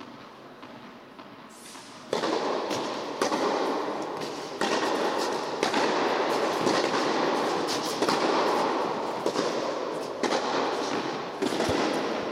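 Tennis ball struck by racket during an indoor rally, the hits sharp and echoing. Under them, a loud continuous rushing noise starts suddenly about two seconds in and cuts off just as suddenly near the end.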